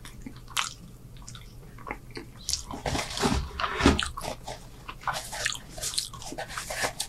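A man chewing a mouthful of food close to the microphone, with irregular wet mouth and chewing sounds and louder noisy stretches in the middle and toward the end.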